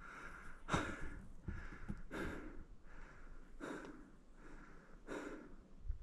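A man breathing hard and fast, a rushing breath about every three-quarters of a second: he is out of breath from climbing a steep trail under a heavy 20 kg backpack.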